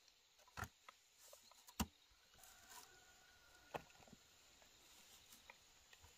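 Chayote fruits being set into a woven bamboo basket: a few soft, scattered knocks and rustles of the fruit against the bamboo weave, the sharpest about two seconds in.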